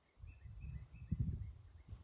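Low, irregular rumbling gusts of wind buffeting the phone's microphone, strongest about a second in, with a few faint, high bird chirps in the first second.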